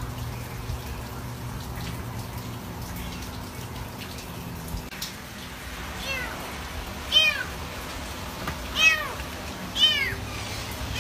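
Kitten mewing: a run of short, high-pitched cries, about four of them roughly a second apart, starting about six seconds in.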